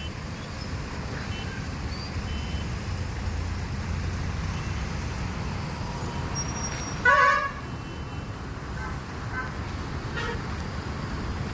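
Steady low rumble of road traffic, with a short, loud vehicle horn toot about seven seconds in.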